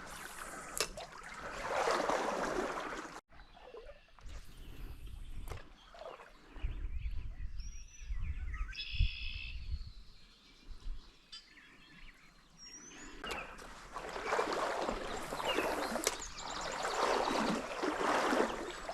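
Stream water running and sloshing around a wading angler, coming in swells, with a low wind rumble on the microphone in the middle and a few short high chirps.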